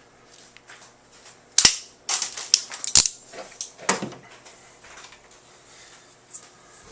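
Cutting blade of an IDEAL ratcheting crimp tool snipping the lined-up cat5e conductors off flat: a sharp snap about a second and a half in, a run of smaller clicks, another sharp snap about three seconds in and one more click a second later.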